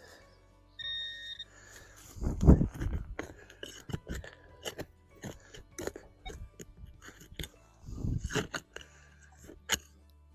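A metal detector gives a short beep about a second in, then a shovel digs into stony soil: irregular crunches, scrapes and clinks, with two heavier scoops of dirt.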